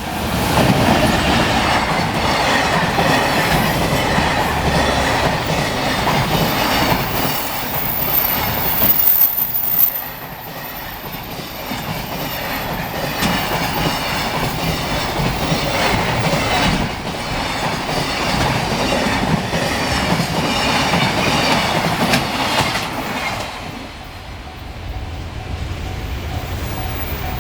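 Train on the JR Kobe Line passing at speed, its wheels clacking rhythmically over the rail joints, in two long loud stretches with a brief lull between. The level-crossing warning bell rings on in the quieter last few seconds.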